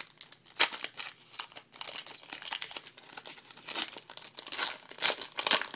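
Foil wrapper of a 2012 Panini Prestige football card pack crinkling and tearing as it is opened by hand, a run of irregular crackles that grows busiest in the second half.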